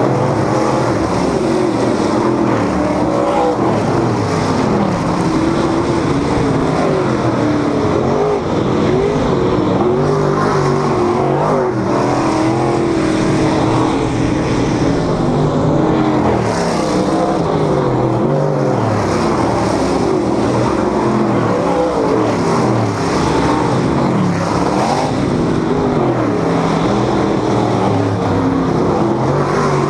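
A field of dirt modified race cars running on a dirt oval. Several V8 engines overlap, their pitches rising and falling without a break as the cars lap and pass close by.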